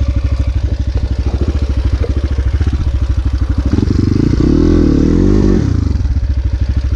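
Dirt bike engine idling with a steady, even pulse. About four seconds in it is revved up for roughly two seconds, its pitch rising and wavering, then drops back to idle.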